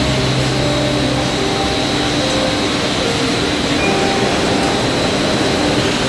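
Textile dyeing and extracting machinery running with a steady, loud rushing noise and a faint hum underneath.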